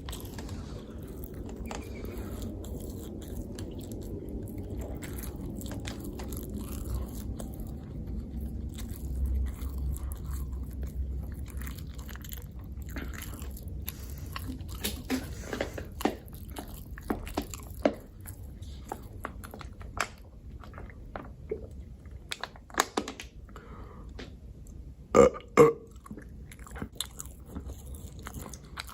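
Close-miked chewing and biting of food, with wet mouth clicks scattered through the second half. Near the end come two short, loud throat sounds about half a second apart.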